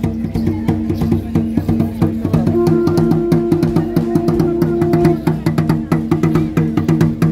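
Flute-and-drum music of the voladores' rain ritual, played from atop the pole: long held notes over a quick, even drum beat.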